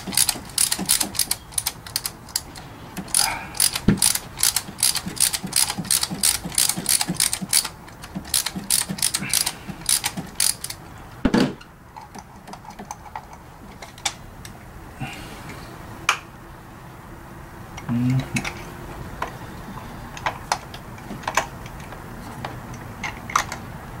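Ratchet wrench clicking in quick, even strokes, about three a second, as a spark plug is worked loose. After about eleven seconds the rapid clicking stops and only a few single clicks and knocks follow.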